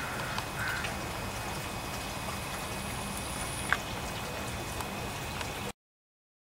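Steady outdoor background noise with a low rumble and a few faint sharp ticks. It cuts off abruptly to silence near the end.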